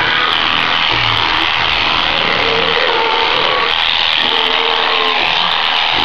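Electric sheep-shearing machine running steadily: a hanging motor drives the handpiece through a flexible shaft while its comb and cutter clip through the fleece.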